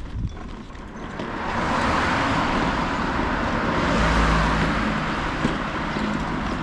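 A car passing by on the road: a smooth rush of tyre and engine noise swells from about a second in, peaks with a low rumble about four seconds in, then slowly fades.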